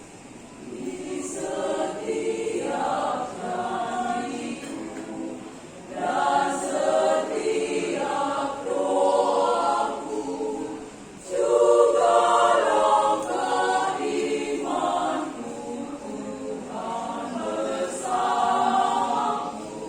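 Choir singing in several-second phrases with brief breaks between them, the loudest phrase coming in about eleven seconds in.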